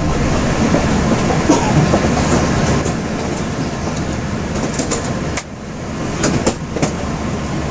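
Yurikamome rubber-tyred guideway train running, heard from inside the driver's cab: steady running noise with a few sharp knocks and a brief dip in level about five and a half seconds in.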